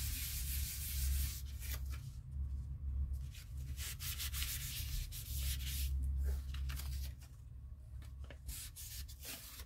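A book page being rubbed down with a paper towel and the flat of a hand onto a wet-painted journal page to lift the stencilled paint: dry, scratchy paper-on-paper rubbing in repeated strokes. It quietens after about seven seconds.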